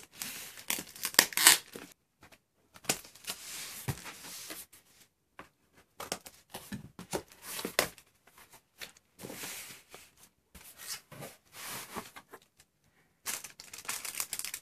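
Parcel packaging being torn open and rustled by hand, in irregular bursts with short pauses between them, the loudest about a second and a half in.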